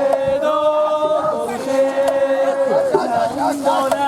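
Festival music: long held, pitched notes in two lines an octave apart, each held a second or two and then sliding into the next.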